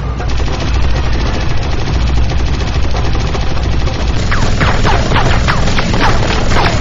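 Rapid automatic gunfire, a dense stream of shots over a low rumble. About halfway through, a run of short falling whines joins it.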